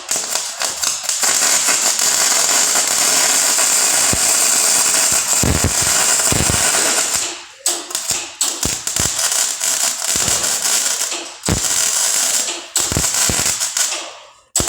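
Snap-On FM140A MIG welder's arc crackling and sputtering as a bead is run to fill a blown-through hole in galvanized steel, a metal the welder blames for the poor weld. One long run of about seven seconds, then several shorter bursts with brief pauses between trigger pulls.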